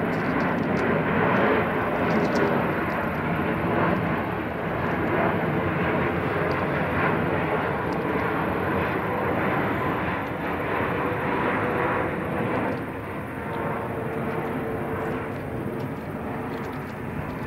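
Boeing 747-8 freighter flying past low overhead: the steady, loud noise of its four GEnx-2B turbofan engines, easing off somewhat over the last few seconds as it moves away.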